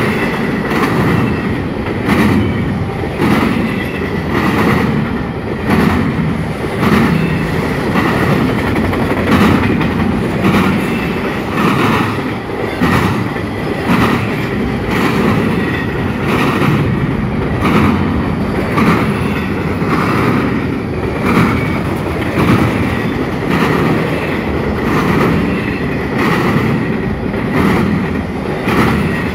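CSX intermodal double-stack train rolling past at speed, its wheels clattering over the rail joints and diamond crossing in a steady run of regular bangs over a rumble, with a faint high wheel squeal.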